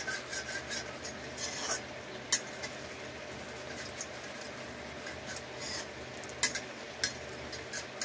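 Vermicelli-coated potato nest shallow-frying in hot oil in an iron kadhai, a steady sizzle, with a metal spatula scraping and clicking against the pan now and then; the sharpest click comes a little over two seconds in.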